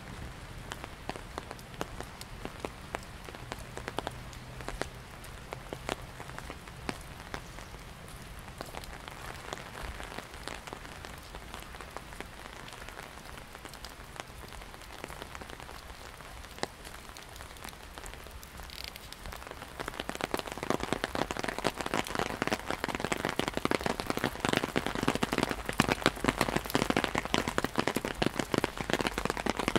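Rain falling on an umbrella: sparse drops tapping on the canopy at first, then about two-thirds of the way through the rain turns heavy and the patter on the umbrella becomes dense and much louder.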